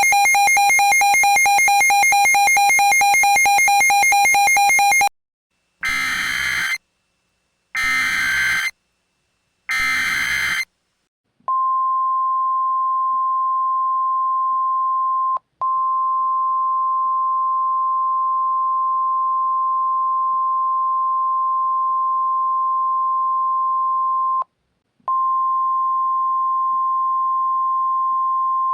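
Simulated Emergency Alert System / NOAA Weather Radio alert tones. A loud buzzy electronic tone lasts about five seconds. Then come three short bursts of screeching SAME header data, and then the steady single-pitch 1050 Hz weather-radio warning alarm tone, which breaks off briefly twice.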